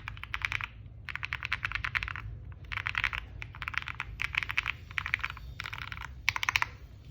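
Typing on a mechanical keyboard with KTT Waverider switches, DMK keycaps and a polycarbonate plate: fast runs of key clicks in bursts with short pauses between them. The typing stops near the end.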